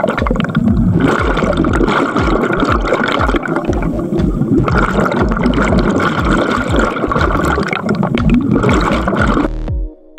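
Dense underwater bubbling and gurgling from a large mass of rising air bubbles, loud and churning with irregular low pulses. It cuts off suddenly near the end, and a few separate electronic tones follow.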